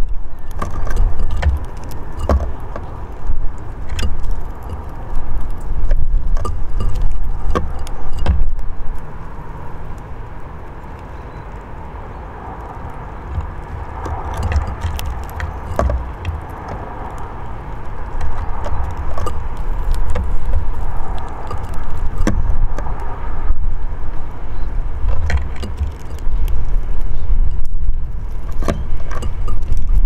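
Outdoor ambience with a low, gusting rumble that rises and falls and dominates the sound, and scattered sharp clicks and taps throughout.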